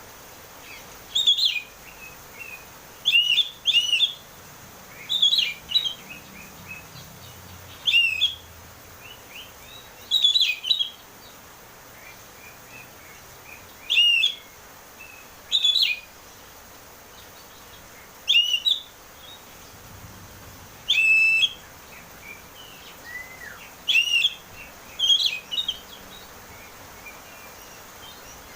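Oriental magpie-robin (kacer) singing its clear, open 'ngeplong' song. Short, high whistled phrases come about every one to three seconds, with pauses between them.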